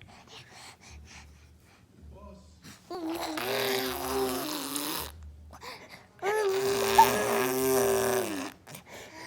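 A baby blowing raspberries, buzzing the lips with voice to make fart sounds: two long ones of about two seconds each, the second louder.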